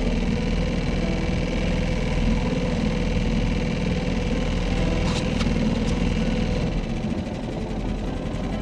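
Boat's outboard motor running steadily at low speed, with two short clicks about five seconds in.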